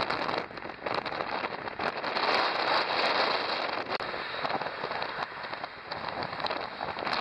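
Road noise from a moving car, heard from inside: a steady crackling hiss, loudest about two to three seconds in.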